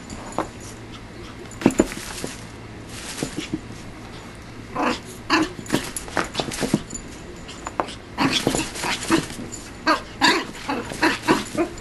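Excited shih tzu puppy giving short yips, whimpers and small growls in scattered bursts, mixed with sharp scuffling bumps as she scrambles and bounces against the playpen and its blankets. The bursts bunch up about halfway through and again over the last few seconds.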